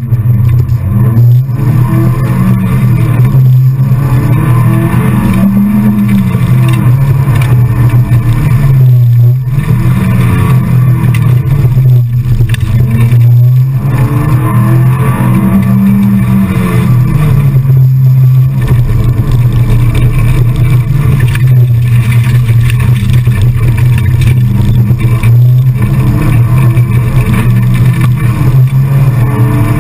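Rally car engine at full race pace heard from inside the cabin, very loud, its note rising and dropping again and again as the car accelerates and backs off through the stage.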